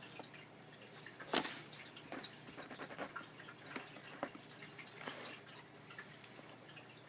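Pen on paper: irregular light taps and short scratchy strokes, with one louder stroke about a second and a half in.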